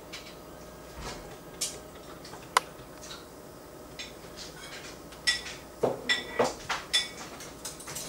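Scattered light clinks and taps of dishes and cutlery, with one sharp clink about two and a half seconds in and a cluster of several ringing clinks between about five and seven seconds in.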